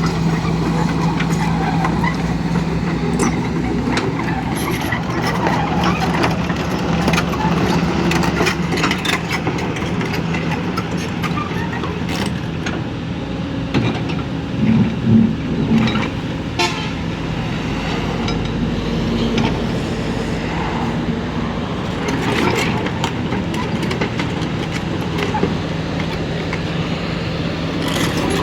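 Kobelco excavator's diesel engine running steadily, with scattered clanks and knocks from the machine working. A few short horn-like toots sound about halfway through.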